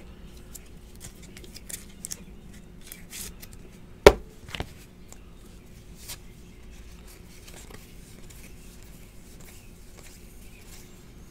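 Trading cards handled and slid through a stack by hand, giving small scattered clicks and rustles, with one sharp click about four seconds in, the loudest sound.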